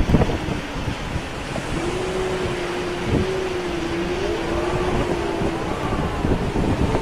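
Hurricane-force wind rushing and buffeting the microphone. About two seconds in a steady whistling tone comes in over the wind and holds for about four seconds.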